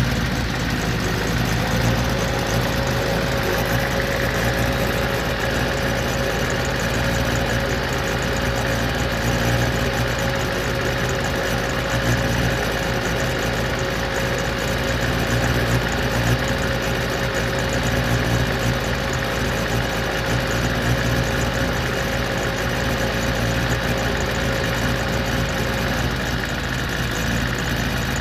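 Engine idling steadily, with a faint steady whine alongside that starts about two seconds in and stops near the end.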